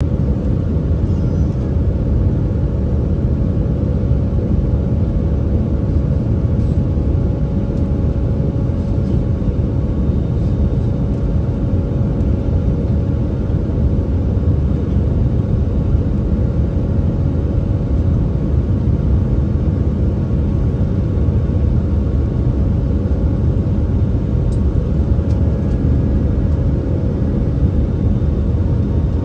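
Steady jet airliner cabin noise on descent, heard inside the cabin: a low rumble of engines and airflow with a faint steady hum above it.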